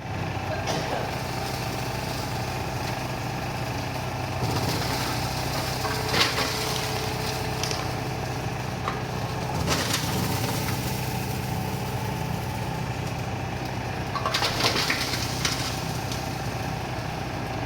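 Detergent powder cage mill running with a steady machine hum, broken three times by brief louder rattles.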